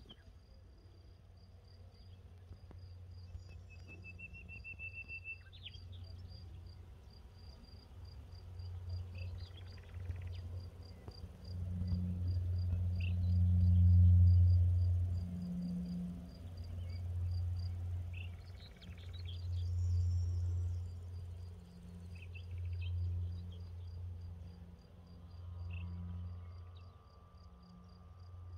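A cricket chirping in a steady, regular pulse, with a few short bird calls. Wind gusts buffet the microphone in low, rising and falling swells, loudest about halfway through.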